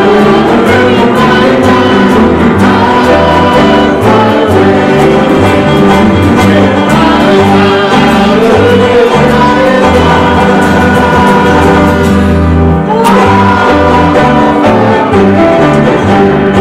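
Congregation singing a hymn with instrumental accompaniment and a steady stepping bass line.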